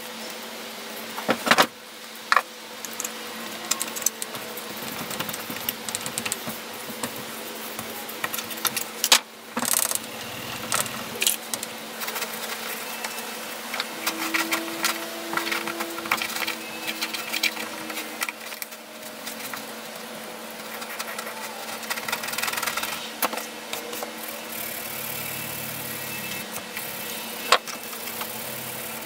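Knocks, clicks and rag rubbing from handling and wiping the metal housing of a vintage Porter-Cable belt sander, over a steady hum.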